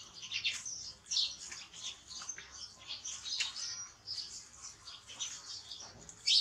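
Two baby macaques squeaking and chirping over and over in short, high-pitched calls while reaching for pineapple: eager food-begging calls.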